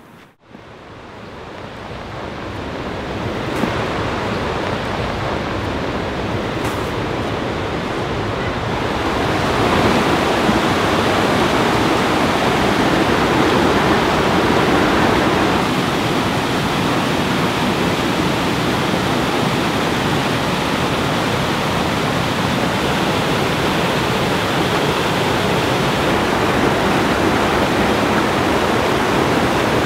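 Whitewater of a mountain creek rushing and tumbling over boulders: a steady rush of water that fades in over the first few seconds and grows louder about ten seconds in.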